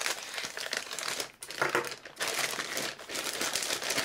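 Thin plastic mailing bag crinkling as hands pull it open and rummage inside it, with a couple of brief pauses.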